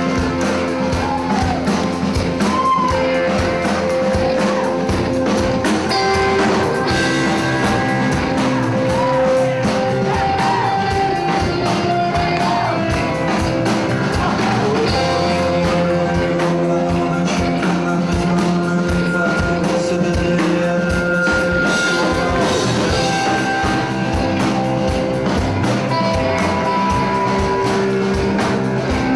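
Live rock band playing: electric guitars and drum kit under a male singer's vocal, loud and steady.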